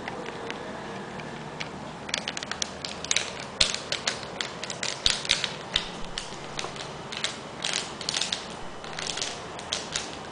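Shiny plastic or foil packaging crinkling and crackling as it is handled and folded by hand, a quick irregular run of crackles starting about two seconds in.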